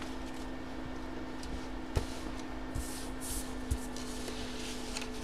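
Paper slips being handled and laid on a table: faint rustles and a few light taps, over a steady low hum.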